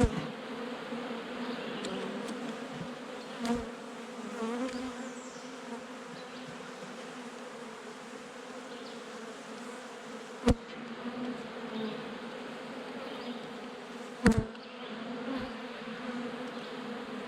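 A colony of honeybees buzzing around an opened nuc, a steady hum. Two sharp knocks stand out, about ten and fourteen seconds in.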